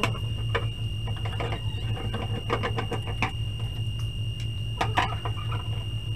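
Screwdriver working the screws on a CRT television's plastic back cover: scattered clicks and scrapes, the loudest about five seconds in, over a steady low hum.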